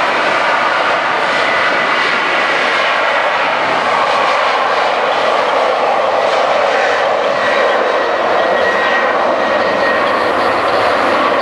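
A Boeing 737-800's twin CFM56-7B turbofan engines running as the airliner rolls along the runway close by: a steady, loud jet noise with a faint high whine through it.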